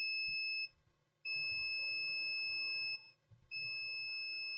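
Multimeter continuity buzzer giving a steady high beep three times, each beep lasting one to two seconds as the probes touch and lift. The meter is reading near zero ohms across the MOSFET, the sign of a shorted drain-to-source on a laptop's 19-volt input MOSFET.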